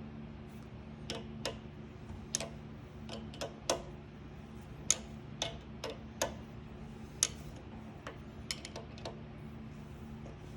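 Irregular sharp metallic clicks and taps, about fifteen in ten seconds, as a battery terminal's compression nut is screwed down onto the cable, with a steady low hum underneath.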